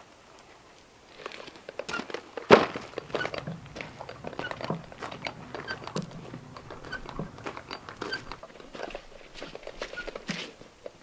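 Footsteps crunching across gravel at a steady walking pace, with one loud sharp knock about two and a half seconds in.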